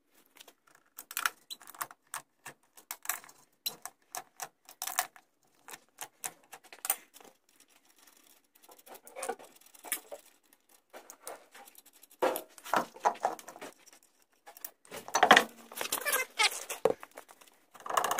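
Steel lug nuts being spun off a pickup's rear wheel by hand, with many short metallic clicks and rattles as they are set down on a concrete floor. Near the end there is louder scraping and knocking as the wheel is worked off the hub.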